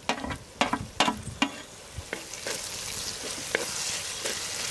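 Chopped tomatoes sizzling in hot oil with fried onions while being stirred, with several sharp knocks of the utensil against the pan in the first second and a half. The sizzle grows louder and steadier about halfway through.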